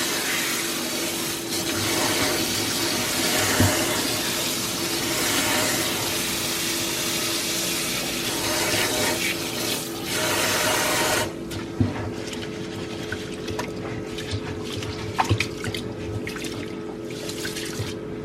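Kitchen tap running water onto rice to wash it, shut off suddenly about eleven seconds in, followed by small knocks and handling sounds as the rice is rinsed. A steady hum runs underneath.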